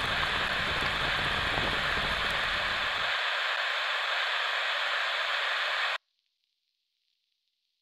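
Loud, steady static hiss with a low rumble under it for the first three seconds. It cuts off suddenly about six seconds in, leaving near silence with faint crackle.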